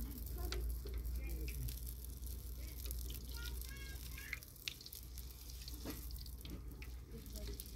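Stuffed flatbread pastries frying in hot oil in a wok over a wood fire: a steady sizzle with small crackles, and tongs turning the pastries.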